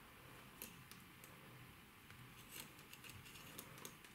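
Faint, irregular clicks and taps of knitting needles as stitches are purled by hand, over faint room noise.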